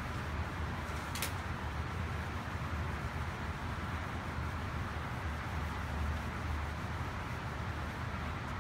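Whiteboard eraser wiping across a whiteboard over a steady low room hum, with one short sharp click about a second in.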